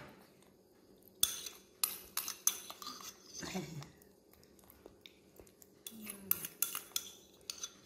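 Metal spoon clinking and scraping against a white ceramic bowl as food is scooped out. The sharp clinks come in two clusters: one about a second to three seconds in, another around six to seven seconds in.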